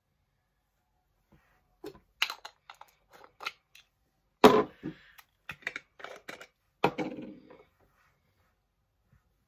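A run of irregular clicks, taps and knocks over about six seconds, the loudest about four and a half seconds in: small cosmetics containers being handled, opened or closed and set down on a table.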